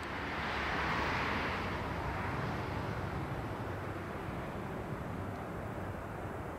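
Antonov An-12A's four Ivchenko AI-20 turboprop engines on approach, heard from a distance: a steady rushing drone with a low hum, swelling briefly about a second in.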